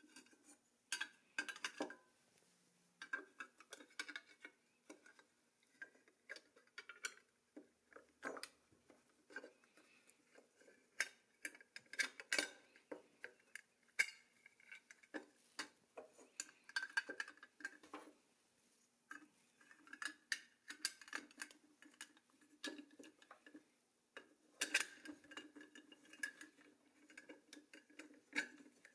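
Irregular light metallic clicks and clinks, some ringing briefly, as a steel axle rod is slid through a painted pressed-steel toy track frame and the stamped steel wheels are fitted onto it.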